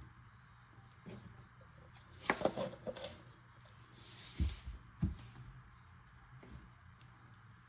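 Handling noise while fitting a garbage disposal's drain pipe: a few sharp knocks and a short clatter of parts about two seconds in, then two dull thumps a couple of seconds later.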